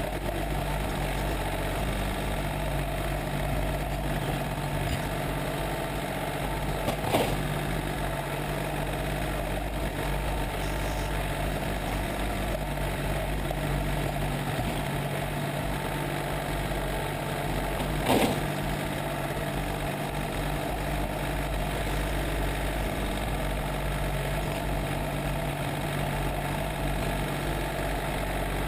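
John Deere 770 compact tractor's three-cylinder diesel engine running steadily as it plows snow with its front loader bucket, with two sharp knocks, about seven and eighteen seconds in.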